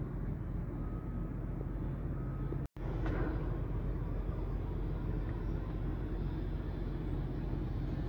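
Steady low rumble of wind on the microphone, mixed with the distant hum of town traffic below. The sound cuts out completely for a split second about a third of the way in.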